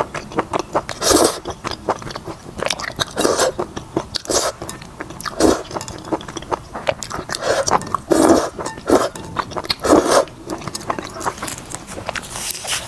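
Close-miked mouth sounds of eating saucy chicken and noodles: wet chewing and lip smacks with many small clicks, and a louder bite or smack every second or two.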